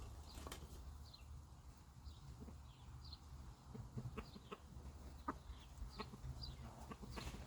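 Chickens clucking faintly, with short high chirps that fall in pitch every half second or so and a few soft clicks.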